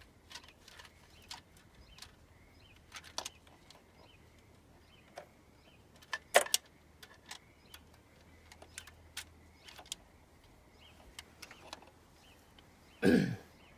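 Scattered light metallic clicks and clinks of a timing chain being worked onto the sprockets of an R53 Mini Cooper S engine, with one sharper click about six seconds in. A short vocal sound comes near the end.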